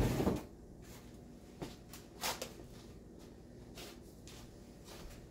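Quiet kitchen room tone with a faint steady low hum and a few soft, brief knocks and clicks. A louder rustling noise fades out within the first half-second.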